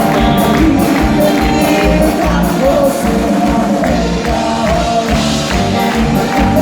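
Live music with a steady drum beat under held melody notes.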